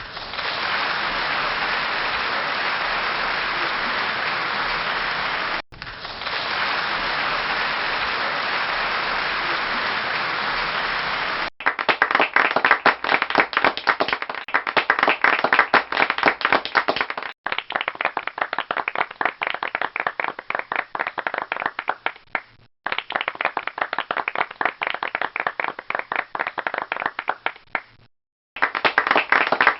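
Applause sound effects in several short clips with brief breaks between them. The first two are dense, even applause from a large crowd; from about halfway through, a smaller group claps, with individual claps clearly separate.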